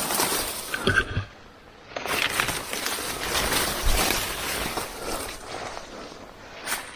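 Leaves and twigs rustling and crackling as a person pushes on foot through dense undergrowth, with a brief lull after about a second.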